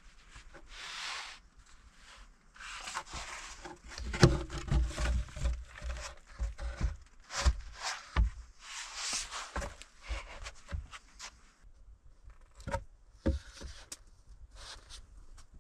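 Rustling and scraping with scattered sharp knocks, and a cluster of low thuds a few seconds in.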